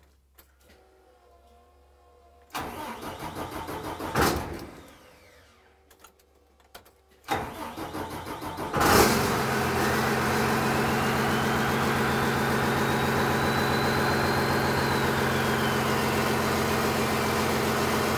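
A 24-valve 5.9 Cummins turbo-diesel straight-six is cranked by its starter twice, and on the second try it fires about nine seconds in and settles into a steady idle. Over the idle, a thin turbo whistle rises slowly in pitch and then falls away near the end.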